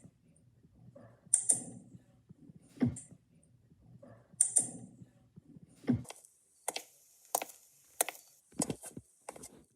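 A series of sharp mechanical clicks and knocks, roughly one a second at uneven spacing, some with a short hiss.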